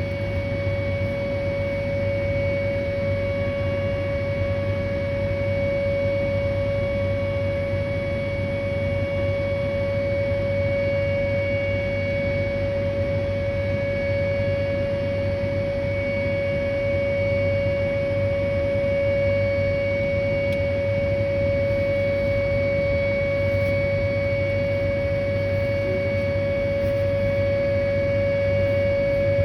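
Whelen 2810 electronic outdoor warning siren sounding its scheduled test as one steady 560 Hz tone, holding pitch throughout with fainter overtones above it.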